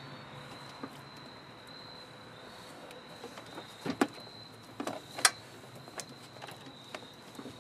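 Hands working wiring and plastic trim under a truck's dashboard: a few sharp clicks and taps about four and five seconds in, over a steady faint high-pitched whine.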